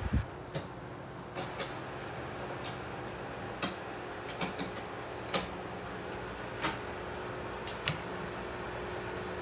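Small 8-inch wall-mount electric fan running with a steady hum and a faint steady tone, with a few light clicks here and there.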